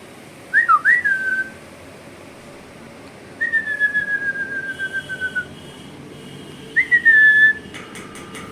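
Parrot whistling clear, sweet tones: a quick up-and-down pair of whistles, then one long whistle that slowly falls in pitch, then a short falling whistle. A few faint clicks come near the end.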